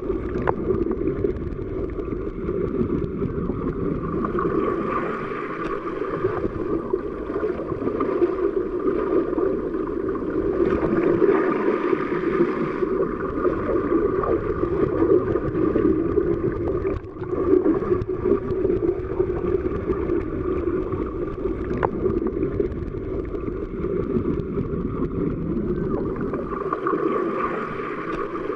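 Underwater ambience: a steady, muffled wash of water noise with no distinct events, dipping briefly about seventeen seconds in.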